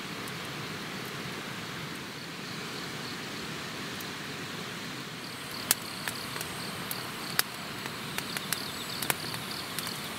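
Wood fire crackling under a frying pan of simmering oden: scattered sharp pops from about halfway through over a steady hiss, with faint insect chirping.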